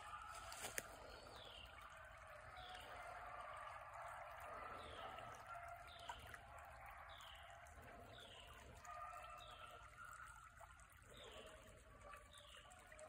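Faint trickle of a shallow creek running over a riffle. A short, high, falling chirp repeats about once a second throughout, and there is one sharp click about a second in.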